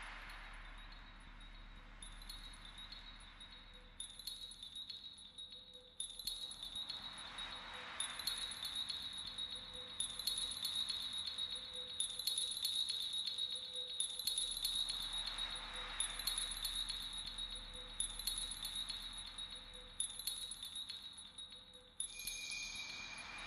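High tinkling, chime-like tones in the soundtrack, coming in phrases that restart about every two seconds, with a slow airy swell rising and fading about every eight seconds. Near the end the pattern changes as a new steady tone comes in.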